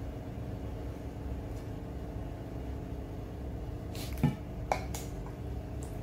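Metal spoon clinking against a glass spice jar, a few short ringing clicks about four to five seconds in, the first the loudest. A steady low hum runs underneath.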